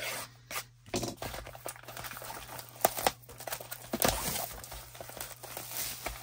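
Crinkling, rustling and scattered snapping of packaging as a hockey card hobby box is opened, with a few sharper snaps about three and four seconds in.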